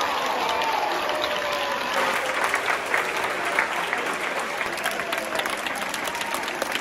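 An audience of schoolchildren clapping and applauding, with a few voices calling out over the clapping.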